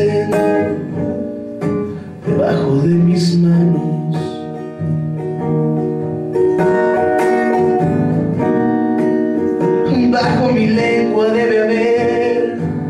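Acoustic guitar strummed with a man singing long held notes over it: a live solo folk-rock song.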